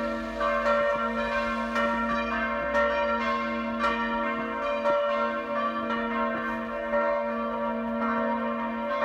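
Church bells ringing, struck about once a second, with each stroke ringing on under the next so the tones overlap.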